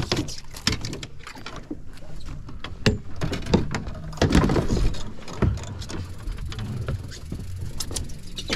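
Irregular knocks, clatter and rattles of a landing net and a freshly caught fish being handled on a fibreglass boat deck, over a steady low rumble. A louder scraping, rustling stretch comes about four seconds in.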